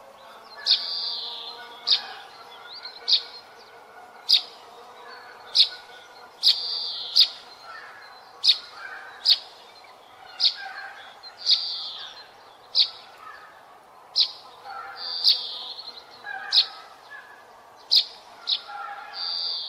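Birds calling: sharp, high chirps repeating about once a second, with short raspy calls at about the same pitch between them, over a faint steady outdoor background.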